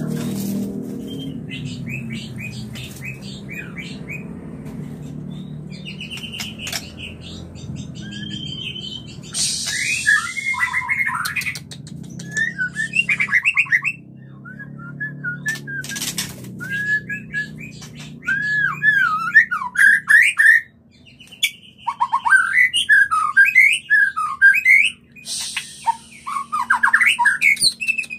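White-rumped shama calling in breeding condition (the 'murai kawin' call): bursts of loud, varied whistled phrases with quick sweeping notes, starting about a third of the way in, broken by two short harsh rasps. A faint low hum and soft chirps come before the loud calling.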